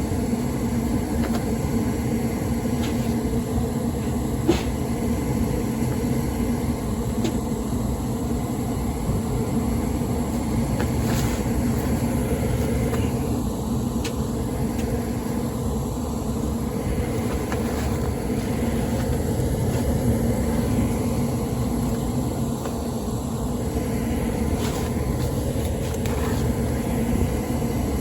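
90% Amana gas furnace running with a steady motor hum, with a few faint clicks. The furnace is working again after its three-flash pressure switch fault.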